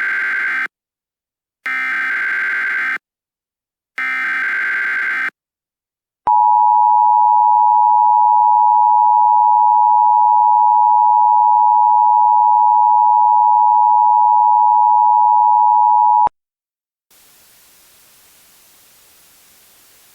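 Emergency Alert System header tones: three buzzy data bursts about a second long each, then a loud, steady single-pitch attention tone that holds for about ten seconds and cuts off sharply, leaving faint hiss.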